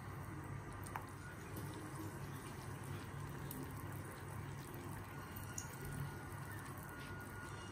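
Potato chunks dropping into a stainless steel pot of water, with small splashes and plops, over a steady low hum.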